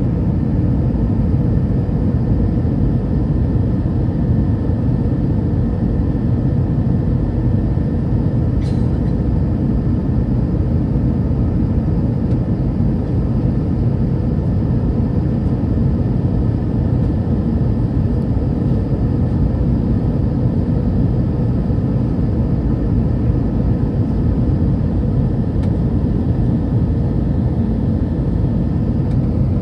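Steady engine drone and airflow noise inside an Airbus A319's cabin on approach, heard from a window seat by the wing, with faint steady tones running through the hum. A brief click about nine seconds in.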